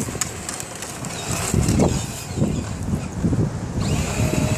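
A child's battery-powered ride-on toy Jeep driving across a lawn, its motor and plastic wheels running, under heavy wind buffeting on the microphone.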